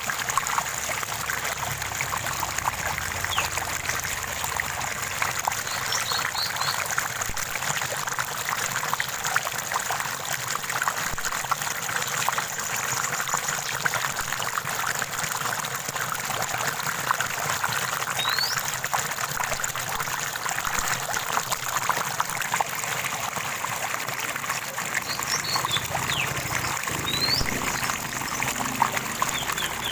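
Shallow stream of water running and trickling steadily, with a few faint, short bird chirps now and then.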